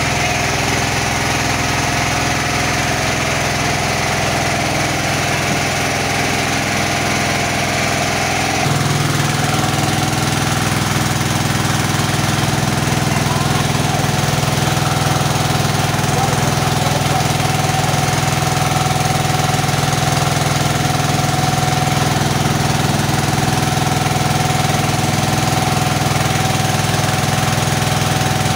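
KD 600 mini rice mill running steadily under its small engine, with a continuous mechanical hum. A hiss of milled rice pouring into a plastic bucket stops abruptly about nine seconds in, and the hum gets a little louder from there.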